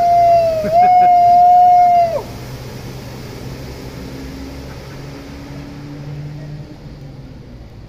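A long, loud held shout that dips and rises slightly in pitch for about two seconds. After it comes the low, steady running of a Jeep Wrangler's engine as it ploughs through floodwater, over a hiss of splashing water.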